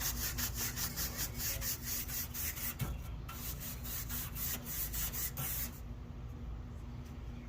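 A brush scrubbing dry dirt off an air-conditioner condenser coil's fins in quick, rhythmic strokes, about four or five a second, stopping near the end.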